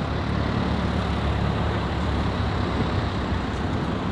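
Steady low rumble of a car engine running, with no revving.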